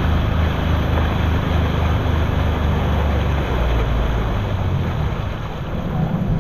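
Speedboat engine running at speed under the rush of water and spray along the hull, with wind buffeting the microphone. The low engine note changes about five seconds in.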